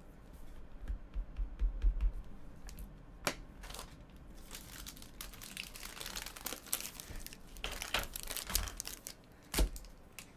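Crinkling and tearing of trading-card packaging being handled and opened, with low bumps early on the table and a couple of sharp clicks. The rustling is busiest in the middle to later part.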